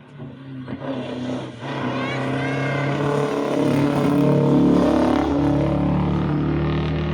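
A rally car's engine under load, drawing closer and growing steadily louder to a peak about four to five seconds in, then easing off a little as it passes.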